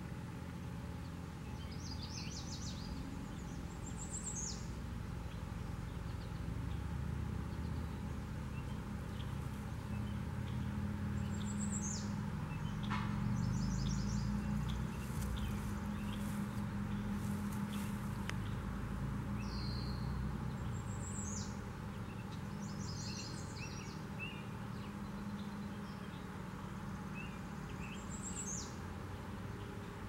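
Songbirds calling outdoors, one repeating a short high downward-sliding call about every eight seconds, with a few brief trills in between, over a steady low background hum.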